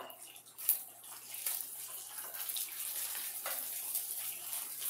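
Rice patties sizzling in hot oil in a stainless steel frying pan, a steady hiss that swells about a second in and then holds. A sharp click of the spatula against the pan comes just before the swell.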